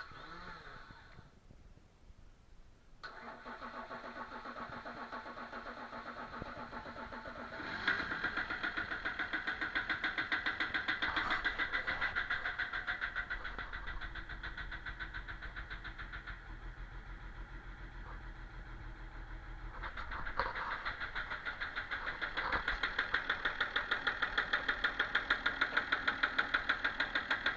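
BMW 330d E46 straight-six diesel engine running with a fast, rhythmic knock caused by a bad fuel injector. It picks up about three seconds in and gets louder twice, around a third of the way in and again near the end.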